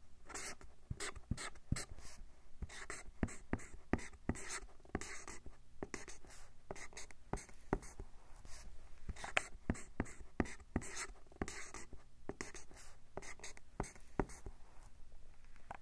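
Dry-erase marker drawing on a whiteboard: a long run of short strokes and sharp taps of the marker tip.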